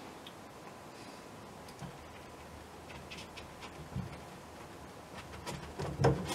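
Paintbrush dabbing paint onto a stretched canvas: faint, scattered soft taps and brushing, with a brief louder thump near the end.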